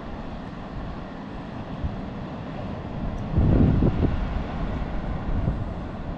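Wind rumbling on the microphone, with a stronger gust about three and a half seconds in.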